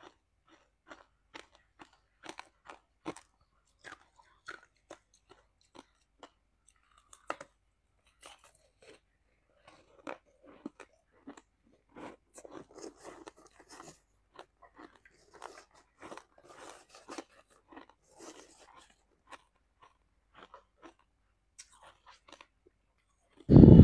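Close-miked crunching and chewing of shaved ice with passion fruit: a run of short, crisp crunches, growing denser in the middle. Just before the end a sudden loud sound cuts in.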